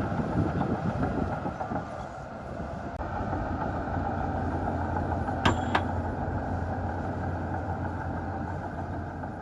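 Heavy diesel earthmoving machinery running steadily at a dirt fill, with uneven knocking in the first couple of seconds and two sharp metallic clanks in quick succession just past the middle.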